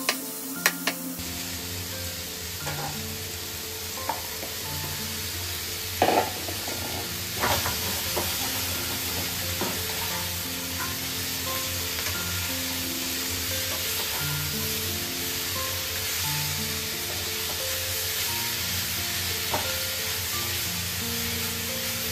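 Food sizzling steadily in hot oil in a pan, starting about a second in, with a few sharp knocks of a utensil stirring against the pan, loudest about six and seven and a half seconds in. Background music with a simple melody plays underneath.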